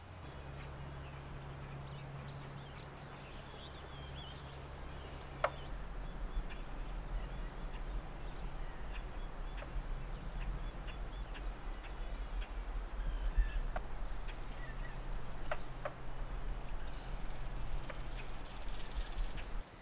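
A small bird giving short high chirps, about two a second, repeated for several seconds, over a steady low rumble that grows louder partway through.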